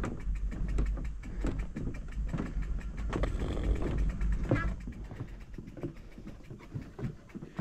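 Fat-tire bike rolling over a wooden plank boardwalk: a rapid run of knocks from the tyres crossing the planks over a low rumble, getting quieter toward the end.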